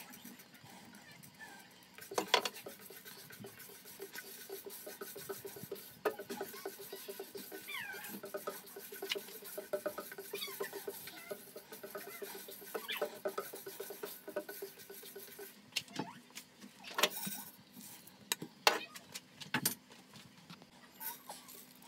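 Split urad dal being dry-roasted in a nonstick frying pan: the lentils rattle and scrape as a silicone spatula stirs them about. A few high squeaks come in the middle, and several sharp knocks come near the end. A steady low hum runs underneath.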